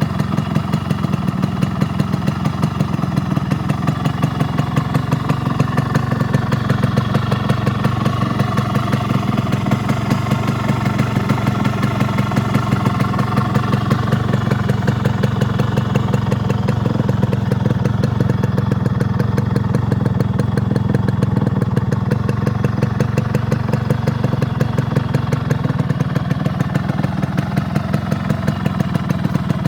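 Yamaha RX100's two-stroke single-cylinder engine idling steadily, with an even, rapid beat of exhaust pulses.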